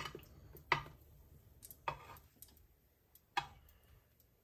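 Four sharp kitchen clicks, spaced irregularly over about three and a half seconds, some with a brief ring after them, from cookware or the stove being handled while the frying oil heats.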